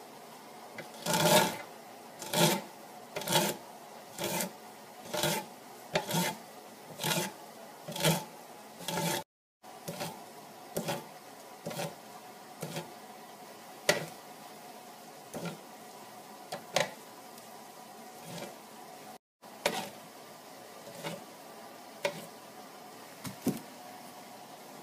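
Boiled ears of sweet corn pushed along a corn cutter's blade, shaving the kernels into a pan: a rasping stroke about once a second. The strokes are loud for the first several seconds and fainter after that, and the sound cuts out briefly twice.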